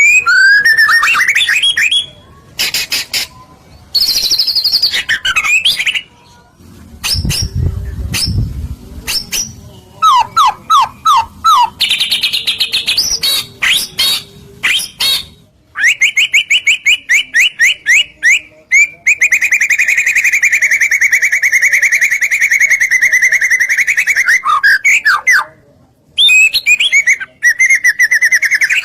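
White-rumped shama (murai batu) singing loudly in varied phrases: sweeping whistles, rapid repeated notes, and a long, fast rattling trill in the middle.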